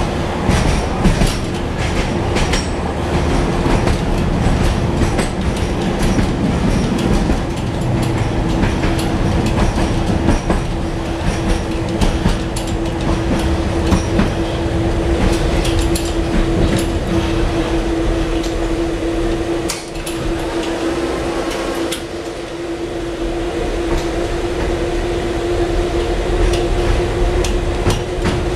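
Tatra T4D tram with its B4D trailer running along the track: a steady rolling rumble of wheels on rail, with frequent short clicks over rail joints and a steady hum held throughout.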